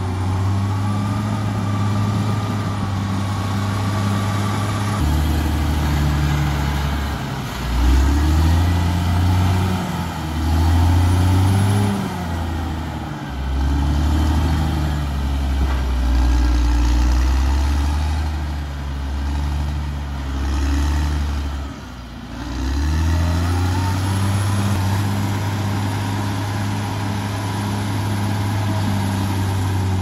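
CAT D6R XL crawler bulldozer's diesel engine running under load as it cuts and pushes soil. The engine note drops lower and wavers from about five seconds in, dips briefly near 22 seconds, then settles back to a steadier, higher note.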